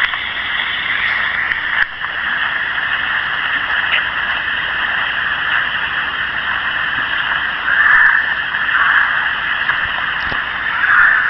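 Steady rush of a waterfall, with a few brief louder swells in the last few seconds.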